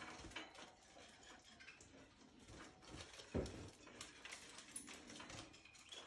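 Canaries moving about in a wire cage: faint scattered clicks and patter of small feet and beaks on perches, wire and dishes, with one louder thump about three and a half seconds in.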